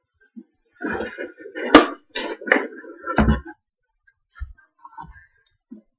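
Clear plastic comic bag crinkling as a bagged comic book is handled, with a sharp click about two seconds in and a dull bump a little over three seconds in, then a few faint light taps.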